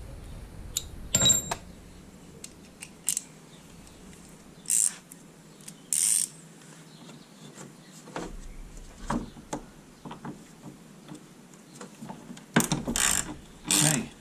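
Hand ratchet clicking as a wing bolt is undone, with scattered clicks and clinks of tools and a run of fast ratcheting near the end.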